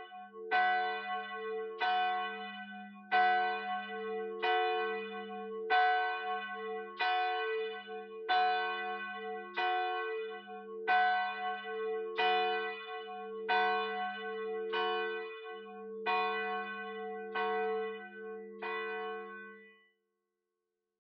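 Church bells ringing, a steady run of struck, ringing notes about one and a half strokes a second over a lingering low hum, stopping shortly before the end.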